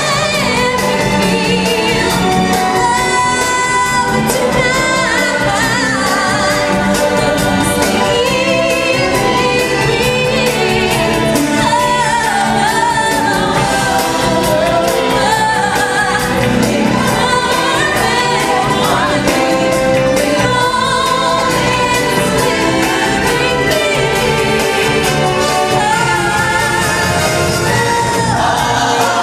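Music: a choir singing with instrumental backing, loud and continuous.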